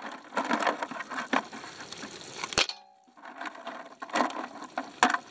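Mussel shells clattering into and against a large metal cooking pot, with irregular knocks. About two and a half seconds in comes a sharp clank from the pot that rings briefly.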